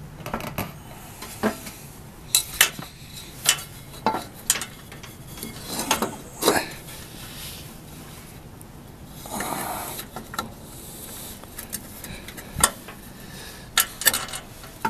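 Scattered metallic clinks and knocks from hands and tools working on an MTD lawn tractor's belt pulleys while the upper transmission belt is fitted, with a brief scraping rub about nine seconds in.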